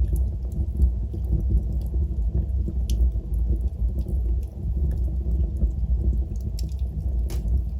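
Wood fire burning in a fireplace: a steady low rumble of flames with scattered sharp crackles and pops. The loudest pops come about three seconds in and twice near the end.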